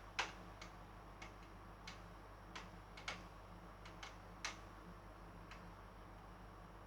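Faint, irregular small clicks, about ten of them, thinning out after about five and a half seconds, over a low steady electrical hum.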